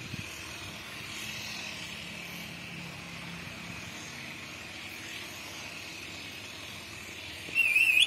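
Rose-ringed parakeet giving a short, loud warbling whistle near the end, over a steady background hiss.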